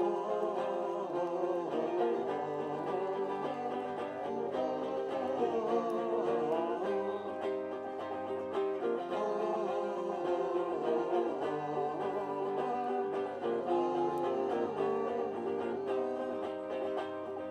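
Acoustic folk band playing an instrumental break between verses: plucked string instruments strumming and picking steadily under a wavering lead melody line.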